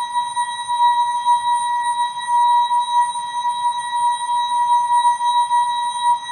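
ASKfm notification sound slowed and stretched into a steady, held electronic tone near 1 kHz with higher overtones, its loudness wavering unevenly.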